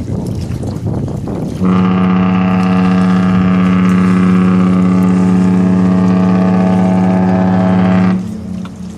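The Norwegian Getaway cruise ship's horn sounds one long, steady, low blast as the departure signal. It starts abruptly about two seconds in and cuts off about a second before the end, with wind noise on the microphone either side.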